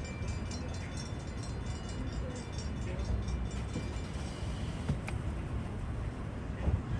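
Railroad crossing warning bell ringing in a fast, even rhythm over a steady low rumble of traffic, fading out about four seconds in. A sharp click comes near the five-second mark and a low thump near the end.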